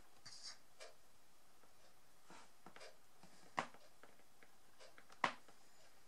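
Faint light strokes of a Tombow brush marker on card stock, with two sharp clicks about a second and a half apart, the louder near the end.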